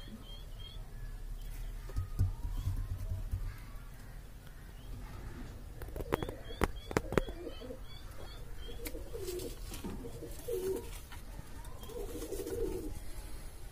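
High flyer pigeons cooing, with the coos coming several times in the second half, and a few sharp clicks about six to seven seconds in.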